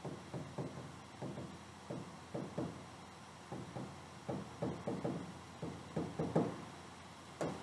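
Soft, irregular taps and knocks against a touchscreen display's glass, about three a second, as a hand works on the screen.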